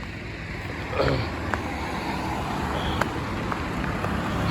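Road traffic: a motor vehicle's engine and tyre rumble, growing gradually louder, with a couple of faint clicks.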